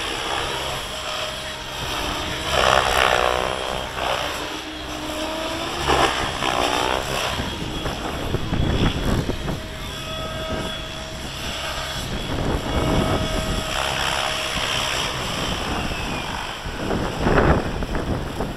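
Gaui X7 electric RC helicopter in flight, its motor and rotor whine wavering and shifting in pitch, with gusts of wind buffeting the microphone.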